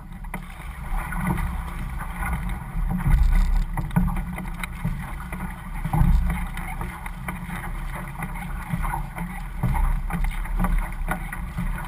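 Water rushing and splashing along an outrigger canoe as the crew paddles, surging every second or two with the strokes, with wind buffeting the microphone.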